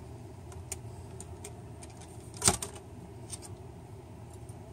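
Small clicks and taps from the Asus K53U's old LCD panel being handled and tilted out of the laptop lid, with one sharper clack about two and a half seconds in.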